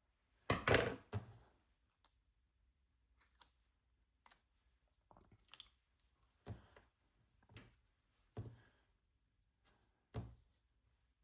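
Scattered short clicks, snips and paper rustles from handling paper stickers and small scissors on a desk, the loudest cluster about half a second in and smaller ones every second or so after.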